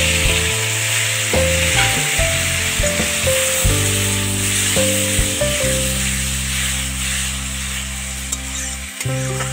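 Chopped tomatoes sizzling in hot oil in a wok, stirred with a metal spatula, under background music with a melody.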